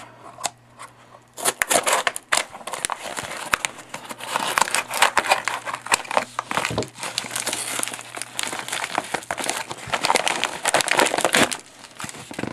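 Scissors cutting open a kraft-paper mailer and the envelope crinkling and crackling as it is handled and pulled open. The dense crackle starts about a second and a half in and stops shortly before the end.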